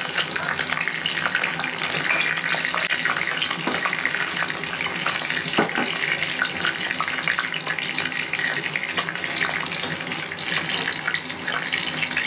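Whole spices (bay leaf, black peppercorns and green cardamom) sizzling steadily in hot oil in a kadai, with a few light clicks as a wooden spatula stirs them.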